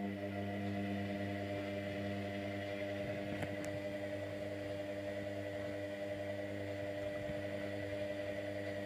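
Indesit Innex washing machine running with a steady electric hum, an even buzz with many overtones that holds without change.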